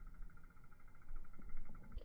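Faint low rumble with a soft, even ticking as a mountain bike passes through the air over a log.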